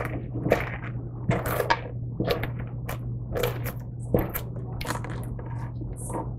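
A metal spoon scraping and scooping the seeds and stringy fibre out of a halved pie pumpkin, in a run of irregular scrapes.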